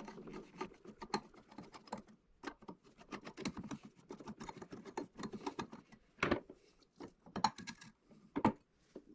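Light clicks, ticks and scraping of small metal parts of a door handle and thumb-latch assembly being unscrewed and taken apart by hand, with a few sharper clicks in the second half.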